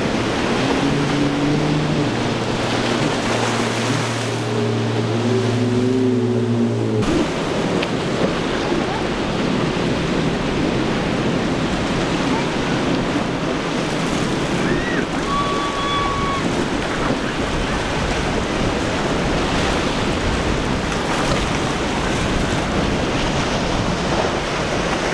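Boat engines running over wind and surf, with a steady low hum and wavering engine tones. About seven seconds in, the sound cuts abruptly to an even, rough rush of wind and breaking waves.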